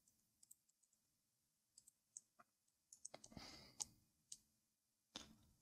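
Faint computer mouse and keyboard clicks, a few scattered taps, over near silence.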